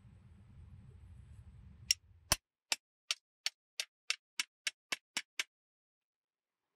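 A run of about a dozen sharp ticks, coming gradually faster, over dead silence.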